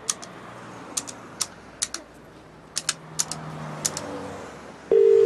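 Scattered sharp clicks, then near the end one short burst of the British telephone ringing tone, heard down the line while the call waits to be answered.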